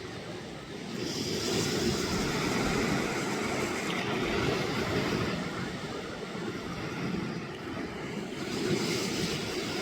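Sea waves washing onto the beach: a steady rushing noise that swells and eases.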